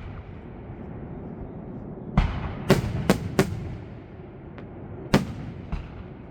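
Fireworks bursting: a quick run of four sharp bangs about two seconds in, then another loud bang about five seconds in, with a couple of fainter pops, over a steady low rumble.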